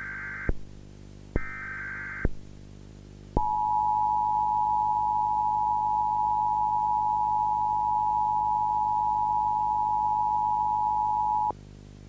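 Emergency Alert System header bursts: the tail of one short buzzy digital screech, then another of just under a second. After about a second's gap comes the EAS attention signal, a steady two-tone beep held for about eight seconds that cuts off abruptly near the end. A low, steady drone runs underneath.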